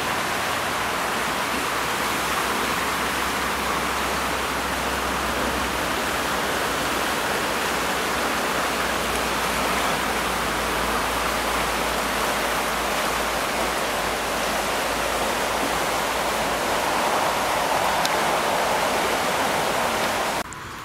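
A river in spate after heavy overnight rain: the steady rush of fast, swollen floodwater. It drops away sharply just before the end.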